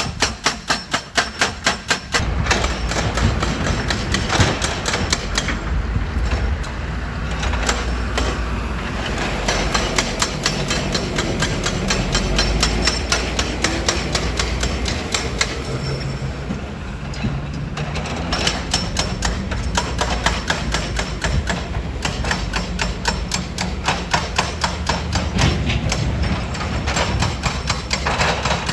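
Heavy stone-crushing machinery working: a fast, even hammering of impacts, joined about two seconds in by a heavy low rumble of machinery that runs on under continuous rapid knocking.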